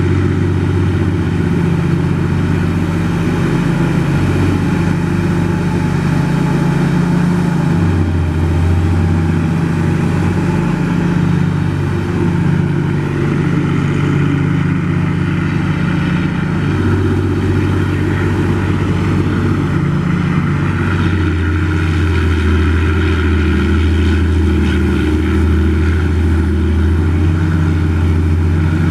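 Demag H185 hydraulic mining shovel's diesel engine running loud and steady while it digs and swings, its deep hum shifting in pitch and strength every few seconds as the hydraulics take and release load.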